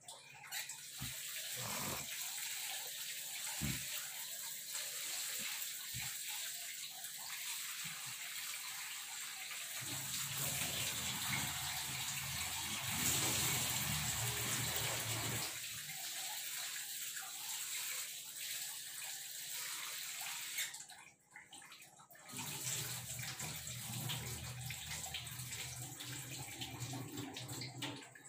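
Kitchen tap running into a steel sink while lentils (dal) are rinsed in a steel plate held under the stream, water splashing and sloshing steadily. The water sound breaks off for about a second roughly three quarters of the way through, then resumes.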